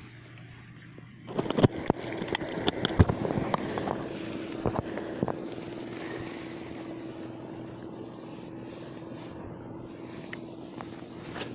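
Sharp clicks and knocks from a spinning fishing rod and reel being handled, thickest in the first few seconds. Under them, a steady low hum with wind and sea noise.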